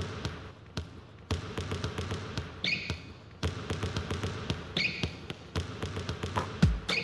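Quick, uneven percussive taps and knocks, with a short high squeak about three seconds in and again near five seconds.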